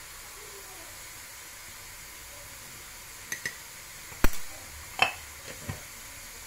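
Steady hiss with a few sharp clicks and knocks of kitchen utensils handled at a glass mixing bowl in the second half, the loudest about four seconds in.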